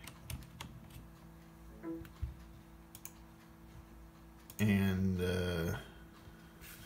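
Several faint, sharp computer mouse button clicks, a few seconds apart, over a faint steady hum that begins about two seconds in.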